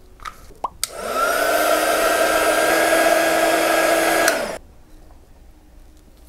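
Small handheld craft heat gun switched on about a second in. Its fan motor spins up with a rising whine, blows strongly for about three and a half seconds, then is switched off and winds down. A few light clicks come just before it starts.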